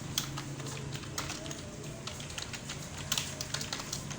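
Computer keyboard typing: irregular key clicks, several a second, over a steady low hum.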